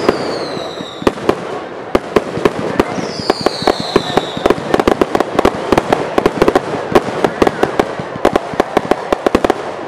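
Aerial fireworks going off in a rapid string of sharp bangs and reports that grows densest in the second half. Two whistles falling in pitch sound near the start and about three seconds in.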